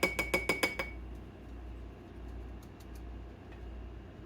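Dried dill weed being shaken from a spice shaker into glass jars: quick rhythmic clicking, about six or seven a second, for roughly the first second, then only a few faint ticks.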